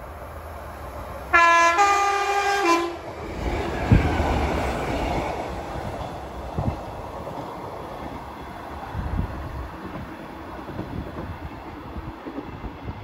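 Diesel multiple unit sounding a two-tone horn about a second in, a lower note then a higher one, dropping back at the end. It then runs past with a rumble and a few sharp wheel thumps over rail joints, fading as it draws away.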